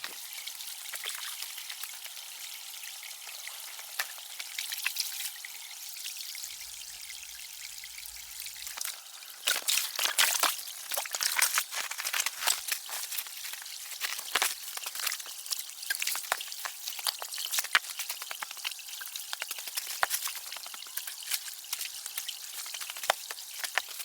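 Water trickling and dripping in a steady hiss. From about ten seconds in, a dense, uneven patter of sharp drops is heard over it.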